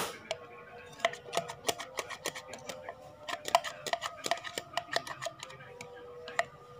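Irregular sharp clicks and taps of a plastic cup and its plastic packaging being handled, with music playing in the background.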